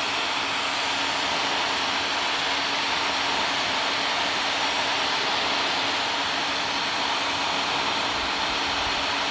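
Electric heat gun blowing hot air steadily over heat-shrink tubing: an even rush of air with a steady motor hum.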